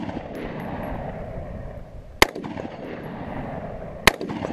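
Single aimed shots from a Sig Sauer 516 Patrol 5.56 NATO gas-piston rifle, two about two seconds apart. Each shot is followed by a long echo.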